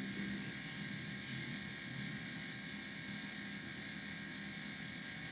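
Steady, even hiss with a faint low hum under it, unchanging throughout: a background noise floor with no distinct event.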